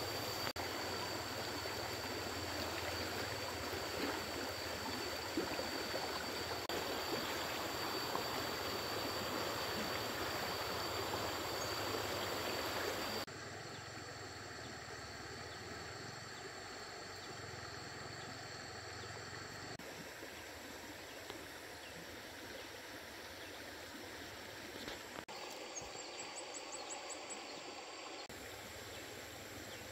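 Running stream water, a steady rush that drops to a quieter level at a few abrupt changes. A thin, steady high-pitched tone sits over it for much of the time, and a short run of quick high ticks comes near the end.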